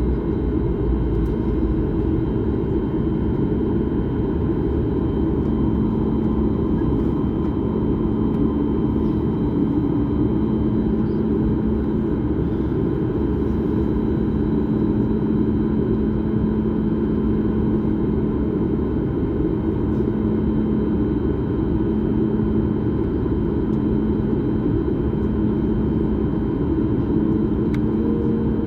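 Airliner cabin noise: the steady rumble of the jet engines and rushing air, with a faint constant hum underneath.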